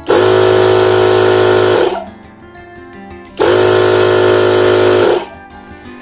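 Twin-cylinder 12 V portable air compressor switched on and off twice by remote: it runs for about two seconds and stops, then starts again about three and a half seconds in and runs about two seconds more before cutting off. It responds to single clicks of the remote now that it is programmed for on/off.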